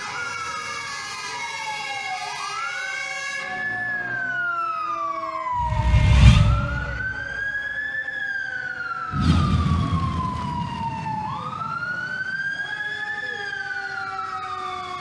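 Fire truck siren wailing in slow cycles, each rising quickly and falling slowly over about four seconds. Two loud, low rumbling surges come in, about six and nine and a half seconds in.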